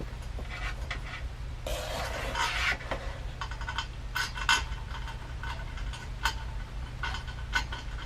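Metal mounting hardware being handled: a short scraping rustle about two seconds in, then a run of sharp metallic clinks and taps. A steady low hum runs underneath.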